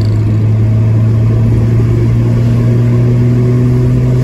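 Chevrolet A20 pickup's six-cylinder alcohol engine running steadily while driving, heard from inside the cab as a constant low drone with road noise.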